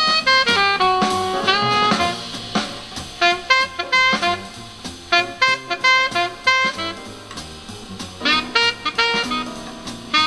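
Jazz saxophone with drum kit, played back through a small homemade 1 W amplifier built on an AN17811A IC and a Pioneer speaker, and picked up by a microphone in the room. Held, gliding saxophone notes in the first two seconds give way to short, stabbed notes over the drums.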